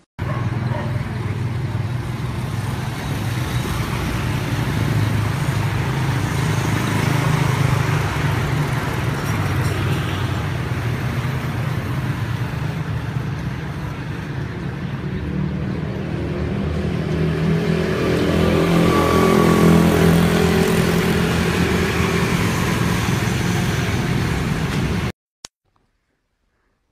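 Steady road traffic noise with a motor vehicle engine running close by. It swells about two-thirds of the way through and cuts off abruptly near the end.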